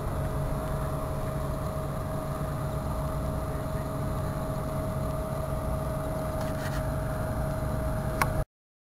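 Steady engine hum with a low rumble and a constant whine, cutting off abruptly about eight and a half seconds in.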